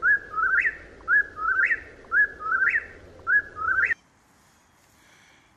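Whip-poor-will calling its three-note song four times, about one call a second, each ending in a quick rising note. The calls cut off suddenly about four seconds in.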